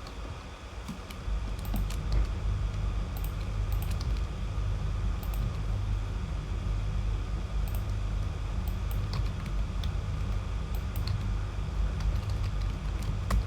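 Scattered computer keyboard keystrokes and clicks over a steady low hum.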